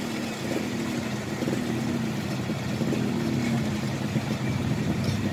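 A vehicle engine idling steadily, its low pitch wavering slightly up and down.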